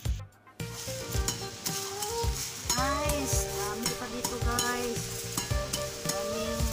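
Machete cutting through grass and dry leaves: a crackling rustle with scattered short knocks. Background music with held notes plays underneath.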